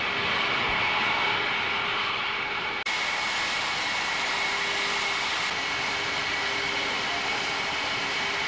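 Jet aircraft engines running at idle: a steady rushing noise with a high turbine whine over it, broken by a brief dropout about three seconds in.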